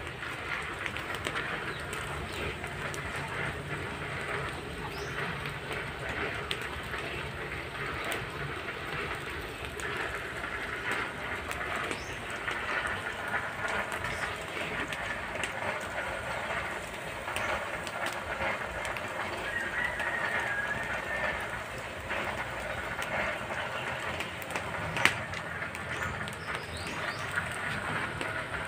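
Open wood fire crackling steadily under a spit-roasted whole pig: a dense run of small clicks and pops over a constant hiss, with one sharper crack about 25 seconds in.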